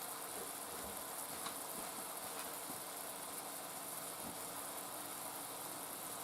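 Ground beef and diced onions sizzling gently in a skillet over very low heat: a steady, even hiss.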